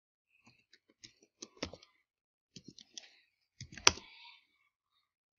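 Typing on a computer keyboard: scattered keystrokes in short, uneven bursts, with one louder key click a little under four seconds in.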